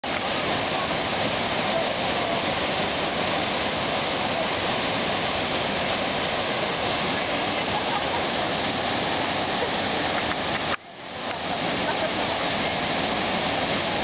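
Small waterfall pouring into a rock pool: a steady rush of falling water. Just before eleven seconds in, the sound cuts out for an instant and swells back.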